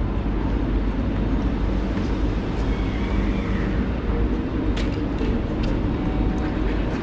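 Steady low rumble of a moving passenger train, with a few short clicks about five seconds in.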